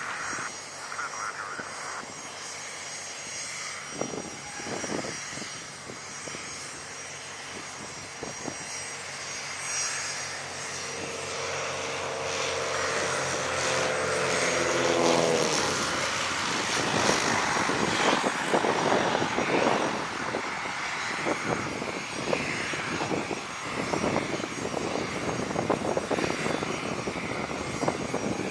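Britten-Norman Islander's twin piston engines and propellers droning and growing louder on approach, their pitch dropping as the plane passes low overhead about halfway through, followed by a loud rushing noise.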